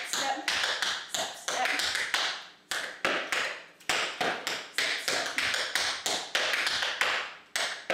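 Metal tap shoes striking a portable tap board in quick clusters of sharp taps with short pauses between: a tap combination of double pickups followed by step, knock, hop and turn.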